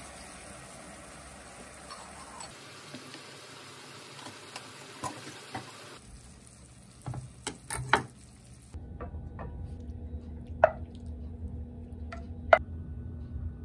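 Sliced shiitake mushrooms and onions simmering in a pan with a steady bubbling hiss as water is poured in. Later a wooden spatula scrapes the mushrooms out of the pan, with a few sharp knocks of wood against the pan and bowl.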